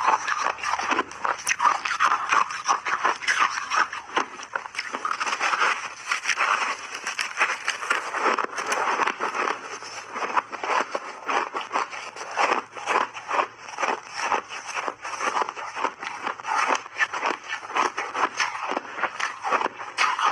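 Close-miked chewing of big chunks of refrozen ice: a dense, unbroken run of sharp crunches and crackles as the ice breaks between the teeth.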